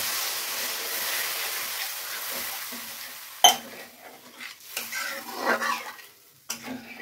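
Hot oil-and-onion masala in a pan sizzles as warm water is added, the hiss fading over about three seconds. About halfway through, a spoon clanks against the pan, followed by stirring scrapes and knocks.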